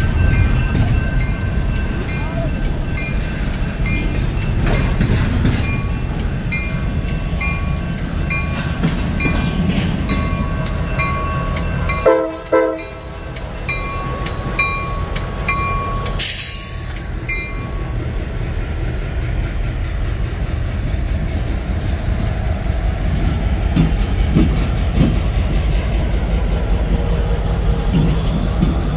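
Double-stack intermodal freight train rumbling past on the rails, with a bell ringing steadily about every two-thirds of a second until it stops about seventeen seconds in. A short locomotive horn blast sounds about twelve seconds in, followed by a brief hiss.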